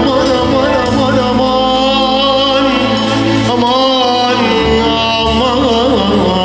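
Man singing a melismatic Arabic mawwal, a wavering, ornamented vocal line, over sustained electronic keyboard chords. The bass note under the voice changes about four and a half seconds in.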